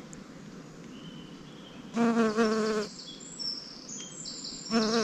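A bee buzzing in flight close by, twice: a short buzz about two seconds in and another starting near the end, its pitch wavering slightly as it hovers at the sap running down the tree bark.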